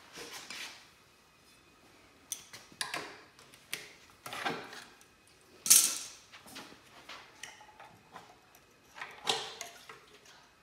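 Irregular clicks, clacks and rustles of hands working on a Honda Grom's fuel tank and its fuel pump fittings, with one sharp clack about halfway through, the loudest sound.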